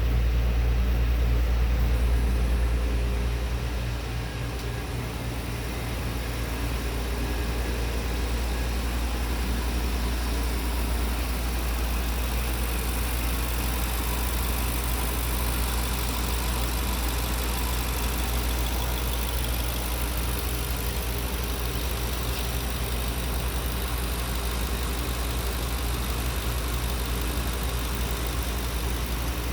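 2015 Kia Optima's 2.4-litre four-cylinder engine idling steadily, dipping a little in loudness about three seconds in.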